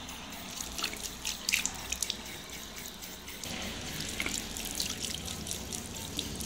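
Tap water running into a ceramic washbasin and splashing off cupped hands, with several sharp splashes in the first two seconds.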